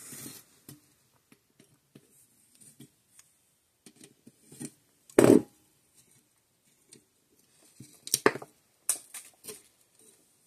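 Hands working a nut loose and handling a small fence-charger circuit board and its capacitor on a wooden workbench: scattered light clicks and taps, one louder knock about five seconds in, and a few sharper clicks near the end.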